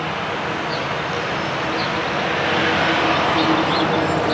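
Steady rushing outdoor background noise with a low hum, growing a little louder about halfway through, and faint high bird chirps now and then.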